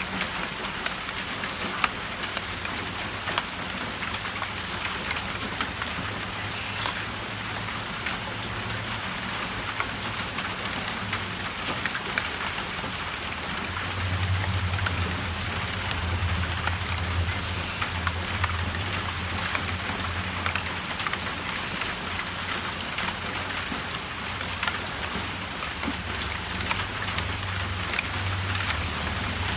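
Steady rain falling on a tin roof and on three inflated balloons, with many separate drop taps. A low rumble under it swells for several seconds from about halfway through.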